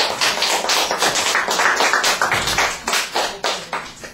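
Hand clapping from a small group, a dense patter of overlapping claps that dies away near the end.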